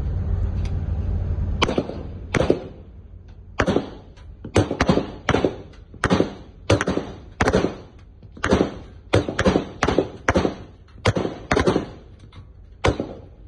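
A long series of sharp single shots, about one to two a second, each with a short echoing tail. A steady low rumble fades out in the first two seconds.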